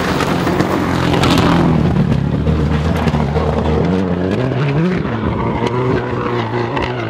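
Rally car engine at hard throttle as the car comes through a muddy dirt section and pulls away, the revs climbing about four seconds in and then dropping back.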